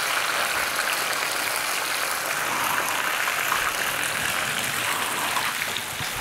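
A whole fish deep-frying in a pan of hot oil, sizzling steadily.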